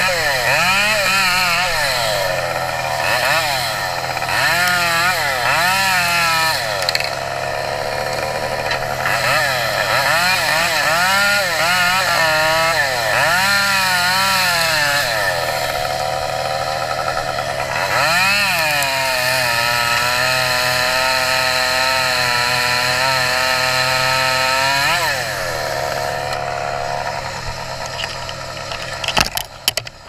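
Chainsaw revving up and down over and over, then held at a steady speed for several seconds while cutting wood, and dropping back near the end. A few sharp knocks come just before the end.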